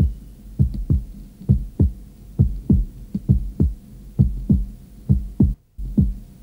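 A slow heartbeat-like double pulse of low thuds that drop in pitch, the second of each pair about a third of a second after the first. The pairs repeat about once every 0.9 seconds over a faint steady drone, and the sound cuts out briefly near the end.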